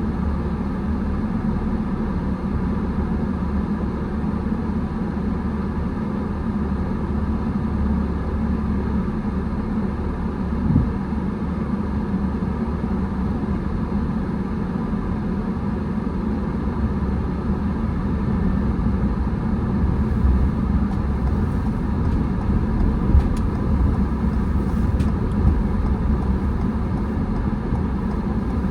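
Car driving: a steady low rumble of engine and tyres on the road, with one brief thump about eleven seconds in and a few faint clicks in the second half.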